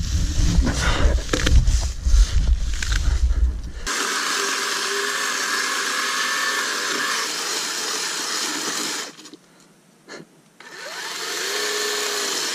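Rustling and knocks in dry leaves for the first few seconds, then a chainsaw running steadily as it cuts into a fallen log. About nine seconds in it cuts out for a moment and then runs again, its pitch rising and falling.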